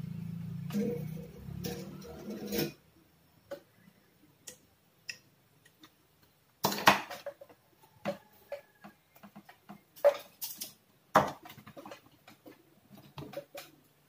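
Scattered sharp clicks and knocks of small hand tools being handled and set down on a workbench. A low hum in the first couple of seconds stops suddenly.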